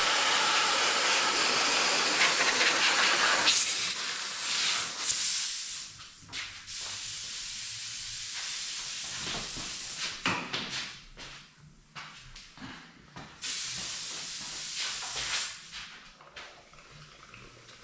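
Bottom-feed airbrush hissing as air is blown back into its white paint bottle, bubbling the paint to mix it with its thinners. A steady hiss for about three and a half seconds, then a few short bursts of air.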